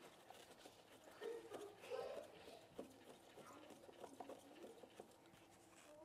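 Near silence, with faint small clicks of a hand screwdriver turning out the screws of a floor receptacle's cover plate. Faint pitched sounds come from somewhere in the house about one to two and a half seconds in.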